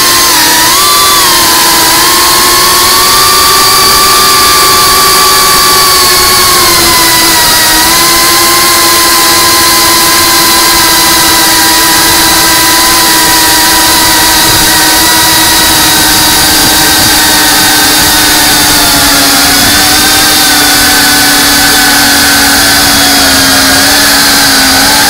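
FPV quadcopter's electric motors and propellers whining, picked up by its onboard camera. The whine holds several steady tones whose pitch shifts gently with throttle and sags slightly lower in the last few seconds.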